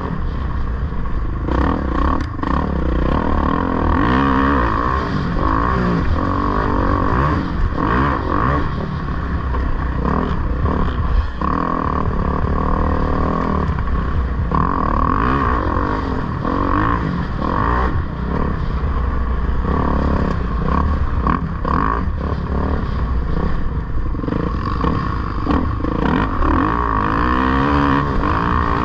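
2011 Kawasaki KX450F dirt bike's single-cylinder four-stroke engine running hard under race load, revs rising and falling. Frequent knocks and clatter come from the bike over rough ground.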